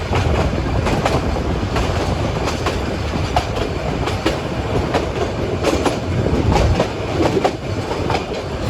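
Nilgiri Mountain Railway toy train running along the track: a steady rumble of the carriages with frequent irregular clacks and knocks of wheels over rail joints.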